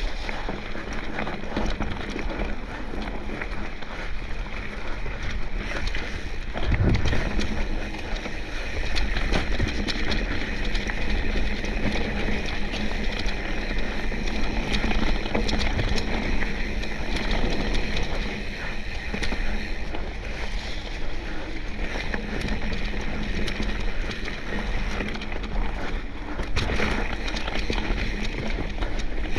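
Mountain bike riding down a dirt singletrack descent: steady tyre noise on the dirt with a light rattle of the bike over the bumps, and a low knock about seven seconds in.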